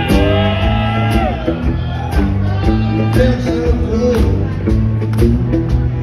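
Rock band playing live: electric guitars over drums with a steady cymbal beat.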